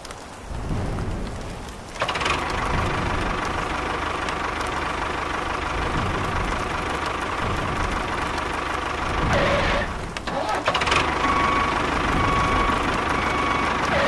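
A motor running steadily with a constant whine, louder from about two seconds in and dipping briefly a few times around ten seconds in.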